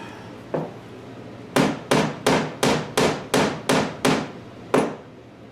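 A hammer driving a glued wooden peg into its hole through a breadboard end. One light tap, then a quick even run of eight sharp blows, then one last blow.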